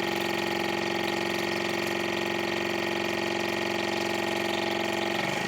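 Electric water pick (oral irrigator) pump running with a steady buzzing hum while spraying water. The hum breaks up just before the end, as the reservoir runs empty.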